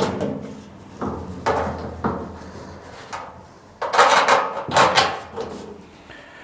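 Wheelbarrow drum and frame being handled and fitted together with bolts: a series of knocks and clunks, some ringing briefly. A louder rattling scrape comes about four seconds in.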